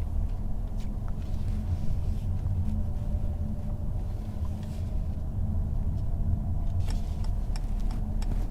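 Low, steady rumble of tyres and road heard inside the cabin of a Mercedes-Benz E300e plug-in hybrid cruising at about 40 km/h on electric power alone, with the petrol engine off. A few light clicks come near the end.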